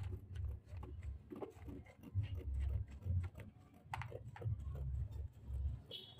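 Dressmaking scissors cutting along a curved line through a sleeve pattern laid over stiff fusible stay: an irregular run of short snips with dull low knocks as the blades and hand work against the cutting table.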